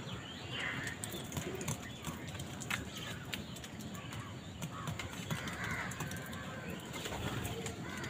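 House crows feeding in a flock, giving a few short harsh caws now and then, with scattered short clicks over a steady outdoor background.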